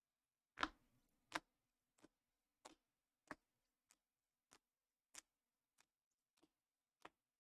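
Rigid plastic trading-card toploaders clicking against each other as a stack is flipped through one card at a time: a sharp click about every two-thirds of a second. The first two clicks are the loudest.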